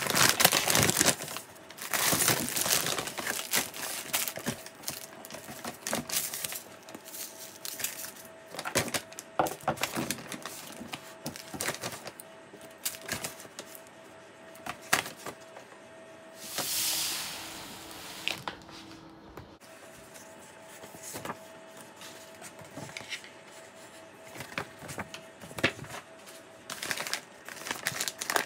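Kraft-paper grocery bags and plastic food packets being handled: crinkling, rustling paper and plastic with scattered taps and clicks as packets are lifted out and set down, and a longer rustle about two-thirds of the way through. A faint steady hum runs underneath.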